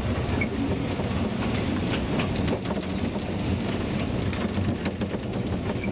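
A narrow-gauge steam train running, heard from inside the carriage coupled behind the locomotive: a steady low rumble with scattered clicks from the wheels and track.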